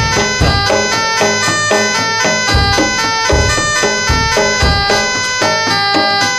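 Jaranan music: a reedy wind instrument playing over ringing gamelan tones, with deep kendang drum strokes coming every half second or so.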